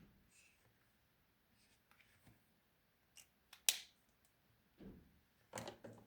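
Faint handwork sounds from squishy crafting: a scatter of short, sharp snips and clicks with light rustling between them, the sharpest a little past halfway.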